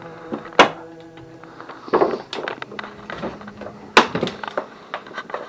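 Two sharp knocks about three seconds apart, with lighter clicks and clattering between them.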